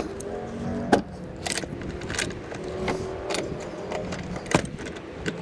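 Metal hardware clinking and tapping as a hood latch and hand tools are handled, with several sharp, irregular clicks.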